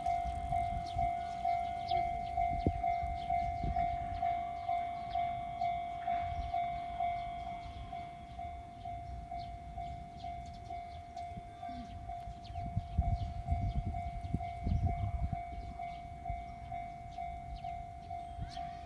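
Japanese level-crossing warning bell ringing, a steady electronic ding about twice a second, while a train rumbles past through the crossing. The rumble is loudest about two-thirds of the way through.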